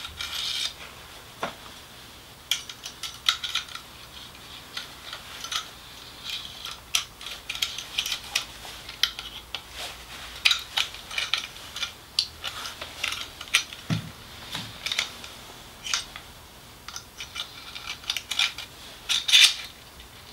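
Light, irregular metallic clicks and clinks from handling a Parkside electric nailer-stapler and its brad nails, with one dull knock about fourteen seconds in and a busier run of clicks near the end.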